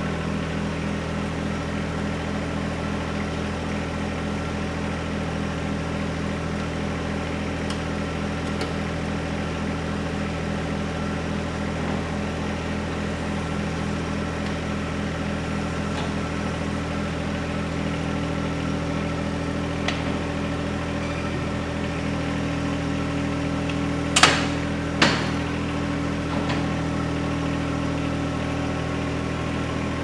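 A John Deere compact tractor's three-cylinder diesel engine running steadily. About three-quarters of the way through come two sharp knocks, less than a second apart.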